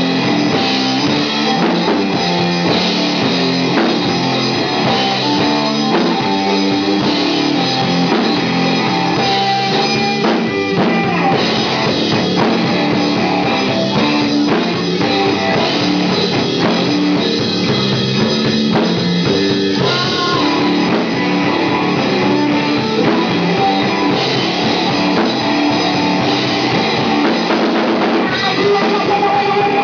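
Stoner rock band playing live: distorted electric guitars over a drum kit with cymbals, loud and dense throughout.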